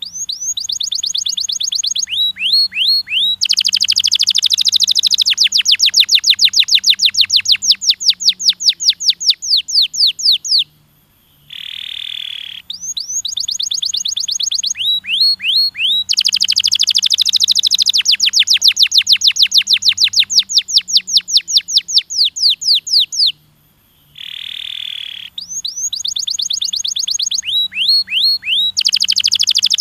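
Domestic canary singing: each phrase opens with a short buzzy note and a few quick rising chirps, then runs into a long rapid trill of repeated sweeping notes lasting several seconds. The same phrase recurs about every twelve seconds, three times over.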